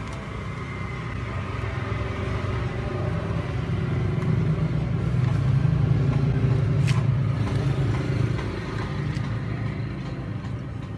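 A motor vehicle passing on the road, its engine hum growing louder to a peak about halfway through and then fading away.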